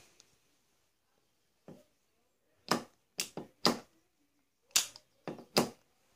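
Antique double-barrelled garrucha pistol's hammer action being worked by hand: a series of sharp metallic clicks from the hammers being cocked and snapped, about eight in all, in two quick clusters.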